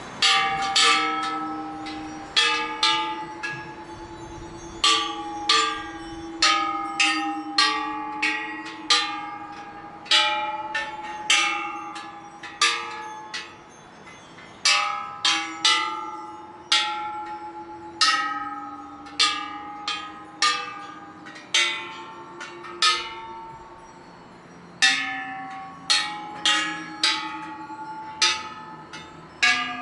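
Thai temple bells struck one after another at an uneven pace, about one or two strikes a second. Each strike rings on and fades, with the pitch shifting slightly from strike to strike, as from several different bells.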